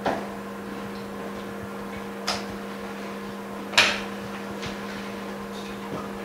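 Sharp clacks of an iPhone 6S front glass and bezel frame assembly being pressed into and worked in a metal alignment mold, three clacks with the loudest about four seconds in, over a steady low hum.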